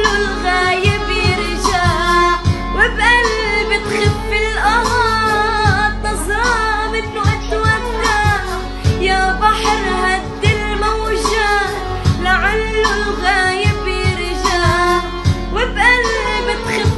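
A song with a high singing voice in ornamented, sliding melodic lines over drum hits and a sustained low bass.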